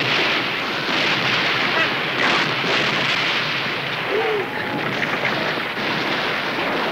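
Dense battle noise: continuous musket fire and explosions, with men's shouts and yells rising briefly above it.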